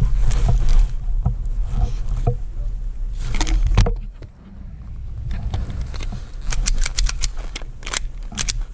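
Airsoft gunfire: a few sharp cracks, then a quick run of about eight sharp cracks in a little over a second near the end, with a couple more after, over steady wind rumble on the microphone.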